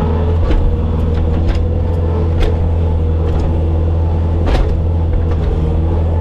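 Bobcat skid steer's diesel engine running steadily, with several short knocks and clanks over it; the loudest comes about four and a half seconds in.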